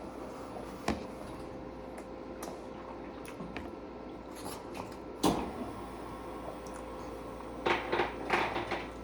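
Eating sounds of someone biting into and chewing a Subway sandwich close to the microphone: scattered small clicks, one sharp knock about five seconds in, and a quick run of rustling, squishy sounds near the end, over a faint steady hum.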